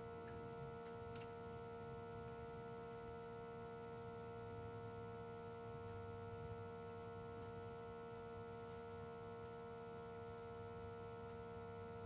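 Faint steady hum made of several constant tones, with no clear events.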